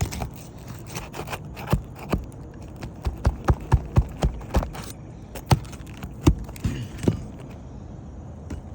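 Sharp knocks and metallic taps from hand tools working at an asphalt shingle on a roof to loosen it. They come as a quick run of about three or four a second in the middle, followed by a few louder single strikes.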